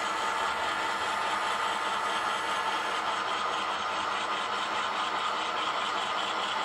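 HO scale model of Southern Pacific diesel locomotive 8100 running slowly on Kato Unitrack, its DCC sound decoder playing a steady diesel engine sound.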